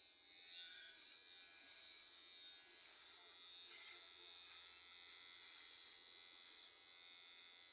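Electric hair clipper running with a steady, faint buzz while cutting hair, a little louder about a second in.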